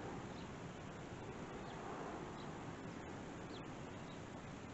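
Steady outdoor background noise picked up by a distant camera's microphone, with a few faint, short, high chirps scattered through it.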